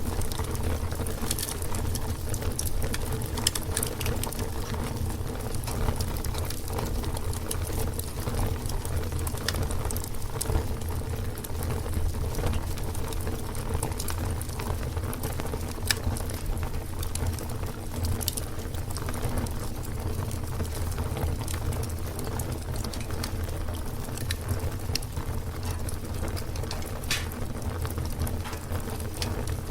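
Fire burning: a steady low rumble of flame with frequent, irregular sharp crackles and pops.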